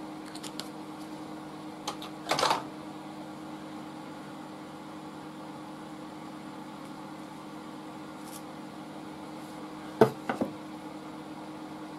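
Hand-work handling sounds at a workbench: a brief rustle about two seconds in, then a sharp knock about ten seconds in followed by two lighter taps, as a glue stick and a taped block of wood are handled. A steady low hum runs underneath.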